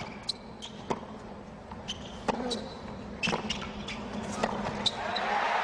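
Tennis rally on a hard court: racquets striking the ball about once a second, with short shoe squeaks between the shots. Crowd noise swells near the end.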